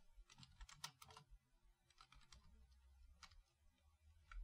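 Faint, irregular keystrokes on a computer keyboard as code is typed.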